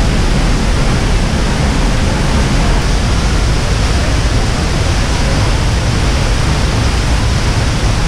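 Loud, steady rush of a tall waterfall in full monsoon flow, heard close to where the water crashes down, deepest in the low end.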